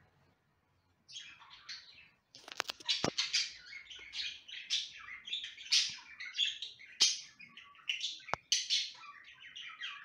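Pet budgerigars chattering and warbling in a fast, jumbled run of high chirps that starts about a second in, with a few sharp clicks mixed in.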